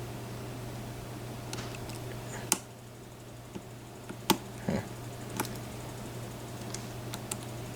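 Lock picking on a BEST interchangeable-core lock: a handful of sharp, small metallic clicks and taps as the pick works the pins under light tension and pins set, over a steady low hum.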